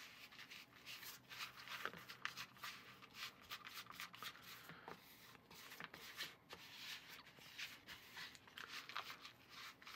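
Faint, irregular scraping and rustling of a small spatula working stiff walnut cookie dough around a plastic mixing bowl.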